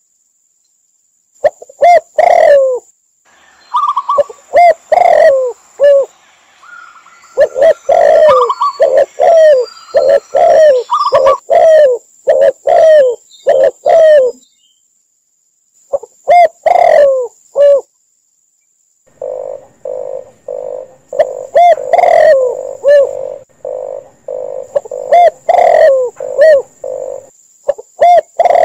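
Dove calls mixed together: spotted dove, red collared dove and zebra dove cooing in repeated short coos, some higher notes among them early on. In the second half a faster run of short, rough pulsed coos joins in.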